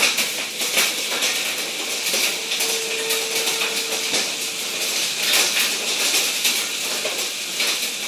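Hail and heavy rain pelting down: a dense, steady hiss full of sharp ticks and clatters from hailstones striking hard surfaces.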